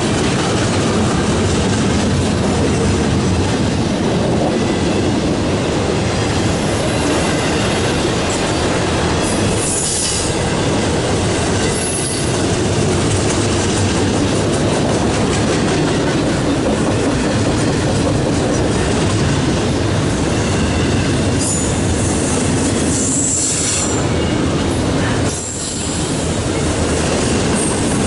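Double-stack intermodal freight cars rolling past, giving a loud, steady noise of steel wheels on rail. Brief high wheel squeals come about a third of the way in and again toward the end, and the noise dips briefly near the end.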